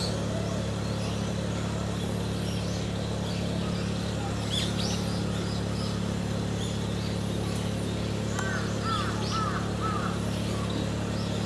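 Scattered short small-bird chirps over a steady low background hum. A run of four quick arched chirps comes about eight seconds in.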